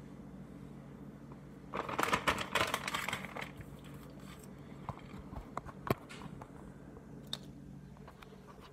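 Plastic bag of shredded mozzarella crinkling for about two seconds, followed by a few sharp clicks and light knocks, over a faint steady hum.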